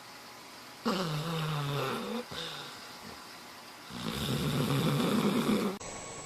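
A sleeping dog snoring: first a pitched moan that falls slightly, then after a pause a louder, harsh fluttering snore that cuts off sharply near the end.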